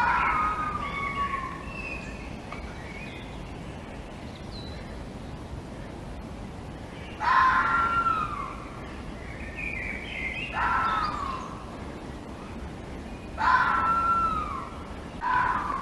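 Red fox calling: five whining cries, each about a second long and falling in pitch, several seconds apart, over a steady background hiss.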